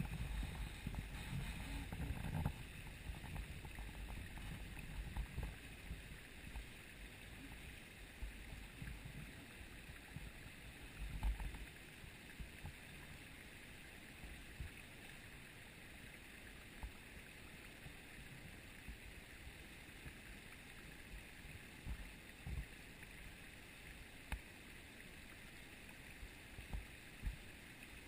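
Steady faint rush of a small woodland waterfall and creek. There is low rumbling on the microphone for the first several seconds, and a few brief low thumps come later.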